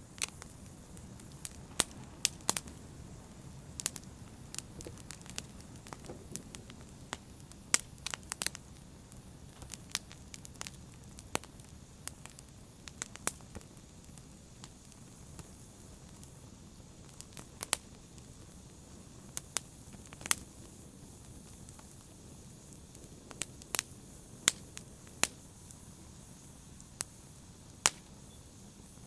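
Wood fire in a fireplace crackling: irregular sharp pops and snaps over a steady low rumble of the burning fire.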